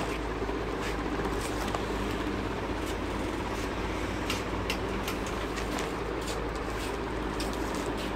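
Plastic-wrapped suit packs crinkling and clicking in short scattered bursts as they are handled, over a steady low background hum.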